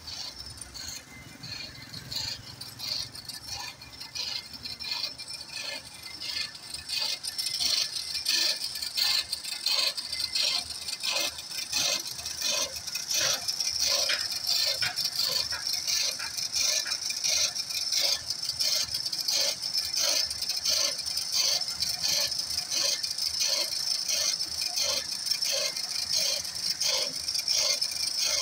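A regular run of scraping, rattling strokes, about one and a half a second, from a worker's hand tool on the steel gate and its groove in a barrage pier, growing louder from about seven seconds in. A motorcycle engine runs low under the first few seconds.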